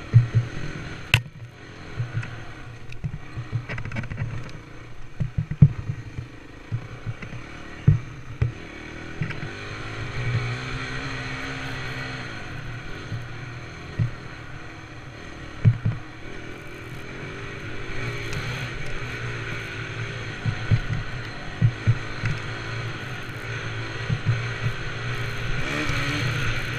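Dirt bike engine being ridden, revving up and down through the throttle changes of trail riding. Sharp knocks and thumps come at irregular moments as the bike hits bumps.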